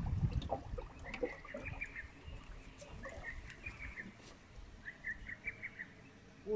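A bird singing, repeating a short phrase of quick high notes three times, about every two seconds, over a faint low rumble that fades after the first second.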